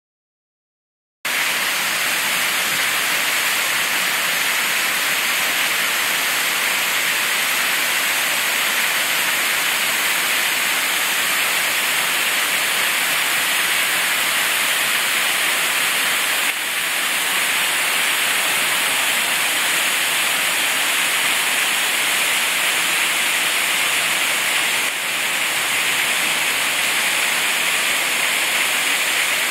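Waterfall's steady rushing hiss, starting about a second in and holding even throughout.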